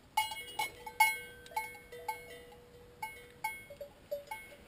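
Cowbell on a cow clanging in a dozen or so irregular, ringing strikes as the animal moves, the loudest about a second in.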